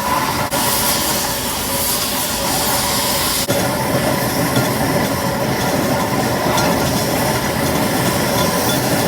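Fowler BB1 steam ploughing engine running on the road, with a steady hiss of steam over the engine's running noise.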